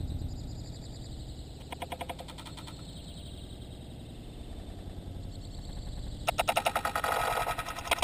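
Slowed-down outdoor sound from a 120fps recording at a bird feeder, with a low, steady rumble. A short harsh, rapidly pulsing burst comes about two seconds in, and a longer, louder one starts about six seconds in.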